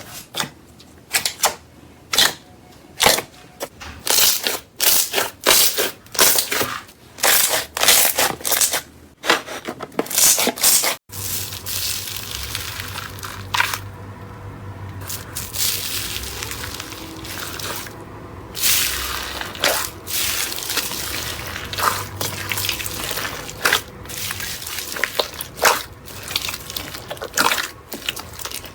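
Slime being squeezed and pressed by hand: a quick series of sharp crackling pops, then, after an abrupt cut about 11 seconds in, a steadier wet, sticky squelching with occasional pops.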